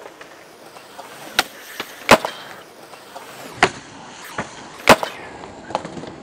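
Skateboards on concrete: wheels rolling, with a string of sharp clacks as boards are popped and landed, the loudest about two seconds and five seconds in.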